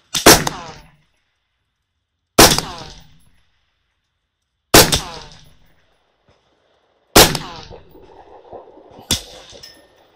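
Radical Firearms integrally suppressed 5.56 AR-15 with a 10.5-inch barrel fired five times at a slow, steady pace, about one shot every two and a half seconds. Each shot is a sharp report that dies away within about a second. The fifth is softer than the others.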